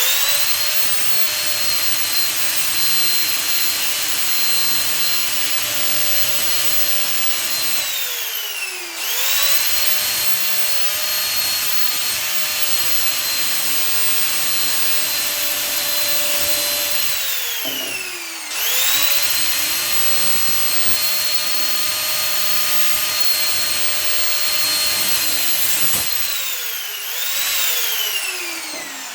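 Angle grinder cutting brass fittings off an old copper tank: a steady high whine that drops in pitch and spins back up twice as the trigger is let off and squeezed again, then winds down near the end.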